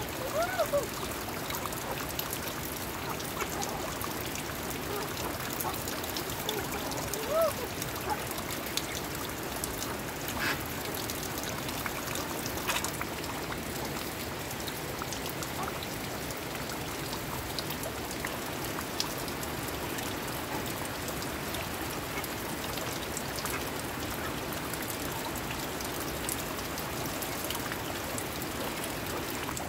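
Steady heavy rain falling on a yard and pouring off a thatched roof's eaves, with a few short chicken calls in the first several seconds.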